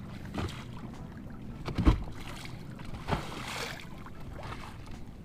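Small lake waves slapping and splashing against the side of a fishing boat, with a few louder knocks on the hull, the loudest about two seconds in, over a low steady hum.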